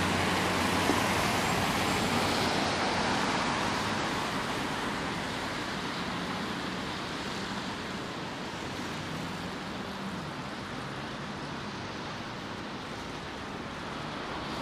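Road traffic on a wet street: car tyres hissing on wet asphalt as vehicles pass, loudest in the first few seconds and then easing, with a low engine hum underneath.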